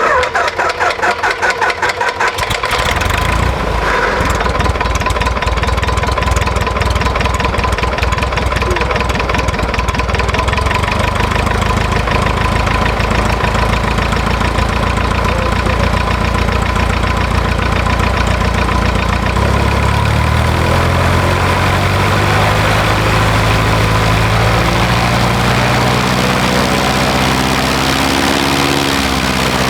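Cessna 140's flat-four aircraft engine starting: a few uneven firings, then it catches about two and a half seconds in and runs steadily at idle. About twenty seconds in, its running note shifts slightly.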